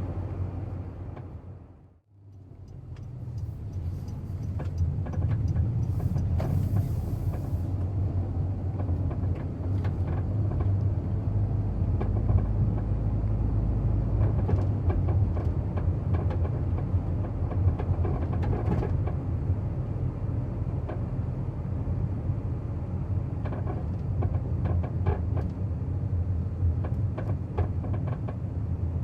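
Inside a Honda N-BOX Custom Turbo on the move: steady road and engine rumble with scattered short rattles and squeaks from the cabin, the abnormal noise the owner has noticed in the car. The sound dips away briefly about two seconds in, then returns.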